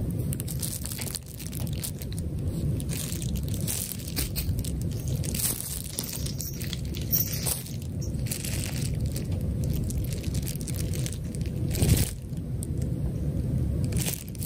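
Bubble wrap crinkling and crackling under cats' paws as they walk across it, with one louder crack near the end.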